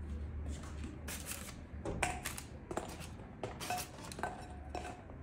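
Kitchen utensils and dishes clinking: a string of irregular light knocks and clinks, several with a brief ring, as ingredients are handled for scone baking.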